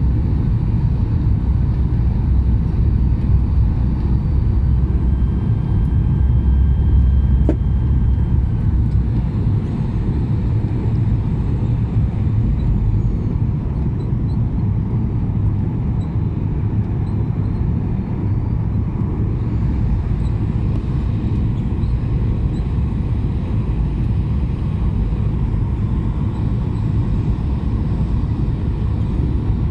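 Cabin noise inside a Boeing 737-800 jet airliner: a steady low rumble of engines and airframe that eases slightly about nine seconds in, with a single sharp click around seven to eight seconds.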